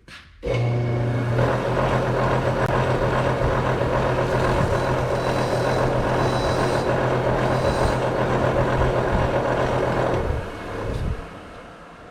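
Bench grinder switched on about half a second in, its motor running with a steady hum while grinding the edge off a steel pin, then winding down after about ten seconds.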